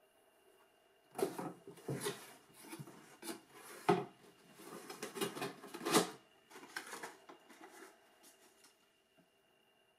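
Handling noise from a canvas sneaker and its cardboard shoebox: a run of rustles and light knocks, with the two loudest knocks about four and six seconds in, fading out after about eight seconds.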